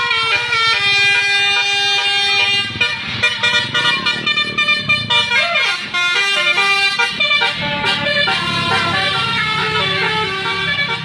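Multi-tone 'telolet' bus horn (Basuri type) playing a tune, its notes stepping from pitch to pitch, over the bus's engine running underneath.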